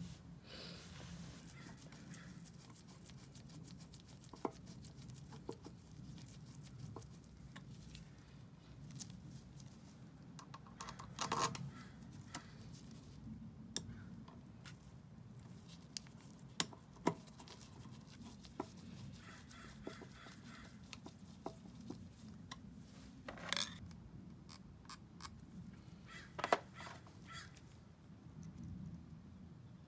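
Scattered clicks and knocks of a small ratchet and a screwdriver driving in the cylinder head screws of an oilless pancake air compressor, with a few louder metal clanks and a short run of rapid ratchet clicking.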